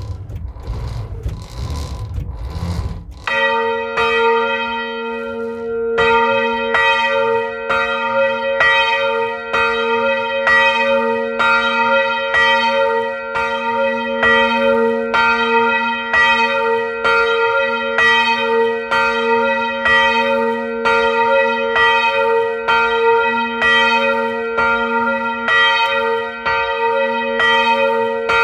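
Large church bell swinging and ringing alone. Low thuds come first, then from about three seconds in its clapper strikes at a steady, even beat, each stroke's ringing tone carrying on into the next.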